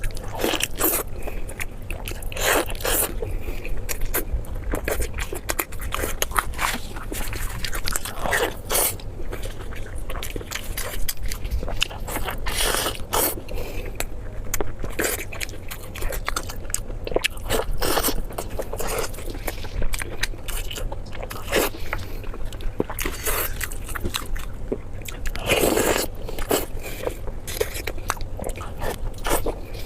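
Close-miked eating: a person biting and chewing food, an irregular string of sharp, crunchy mouth sounds.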